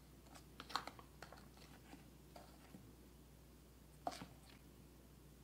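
Faint, scattered light clicks and scrapes of a metal spoon against a stainless steel bowl while runny sugar glaze is spooned over a fried pastry, the sharpest click about four seconds in.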